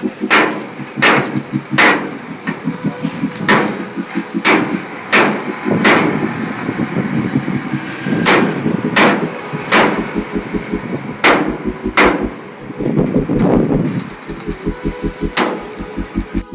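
Hammer blows on the sheet metal of a truck body during panel repair: sharp ringing strikes, irregular, roughly one a second, with a couple of longer pauses.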